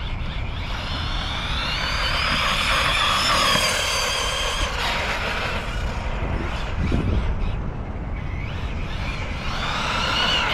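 Arrma Kraton 6S BLX RC monster truck on a full-throttle speed run, its brushless motor and drivetrain whining. The whine rises in pitch as it accelerates, holds for a few seconds, then fades. A second rising whine comes near the end.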